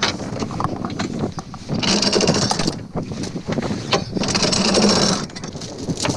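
Anchor chain being hauled in by hand over the yacht's bow fitting, the metal links rattling in two long pulls about two and a half seconds apart, with single clinks between them. Wind noise on the microphone underneath.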